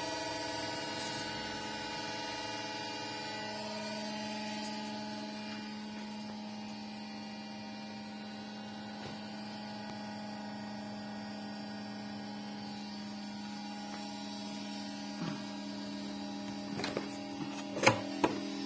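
Creality Ender 6 3D printer giving off a loud, steady electrical hum from its base, one low pitch with a stack of overtones. A few sharp clicks come near the end.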